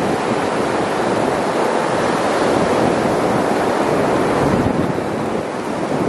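Surf on a sandy beach: a steady, even wash of breaking waves, with wind buffeting the microphone.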